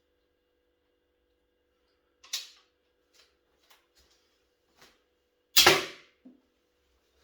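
50 lb pistol crossbow being worked and shot: a sharp click about two seconds in, a few light clicks, then a loud snap about five and a half seconds in, the loudest sound here, as the crossbow fires.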